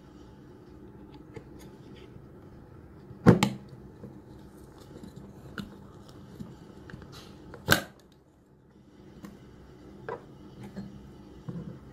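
Clear plastic lid being handled on a glass mug: scattered soft clicks and taps, with two sharp, loud clacks, about three seconds in and just before eight seconds, as the lid is gripped and worked off the mug.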